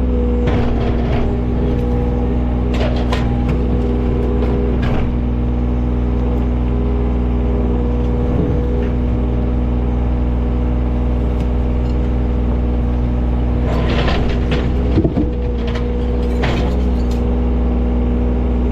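John Deere 35G mini excavator's diesel engine running steadily while digging, with occasional knocks and scrapes from the bucket working rock and concrete, the busiest stretch about fourteen to seventeen seconds in.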